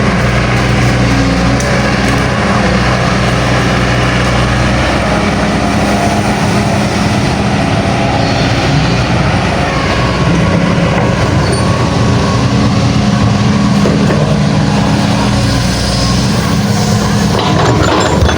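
Hydraulic excavator's diesel engine running close by, loud and steady, its note shifting about five seconds in and again about ten seconds in as it works.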